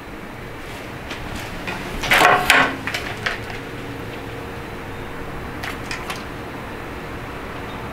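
Handling clatter as a toy gun is picked up and moved around, loudest in a short burst about two seconds in, followed by a few faint separate clicks.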